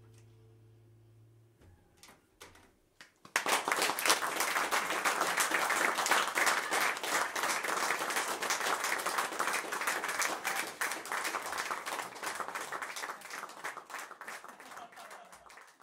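The band's last chord rings out and fades, then a few scattered claps grow into a club audience's applause about three seconds in, which thins out and dies away near the end.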